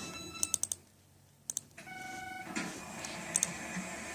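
Two short electronic beeps, the second one lower, about two seconds apart, mixed with a few sharp clicks and a brief drop to near silence between them.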